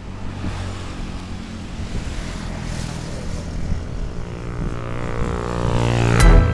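Motorcycle engine running through an aftermarket exhaust, a steady drone that grows steadily louder. Music cuts in right at the end.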